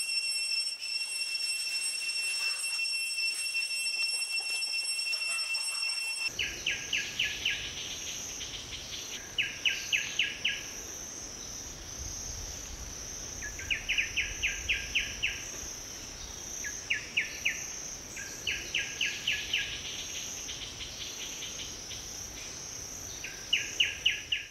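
Outdoor insect drone: steady high buzzing tones, which change abruptly about six seconds in to a pulsing high buzz. Over it, short bursts of five or six rapid chirps recur every couple of seconds.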